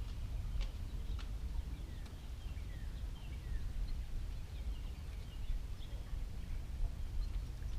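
Birds chirping, with many short falling calls scattered throughout, over a steady low rumble. Two sharp clicks sound about half a second apart near the start.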